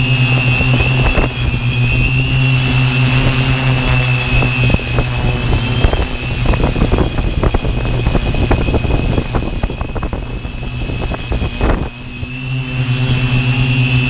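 Tarot 650 quadcopter's SunnySky brushless motors and propellers running steadily in flight, a hum with a high whine over it, picked up by the onboard GoPro. Gusty wind buffets the microphone through the middle, partly drowning the motor tones, then eases near the end.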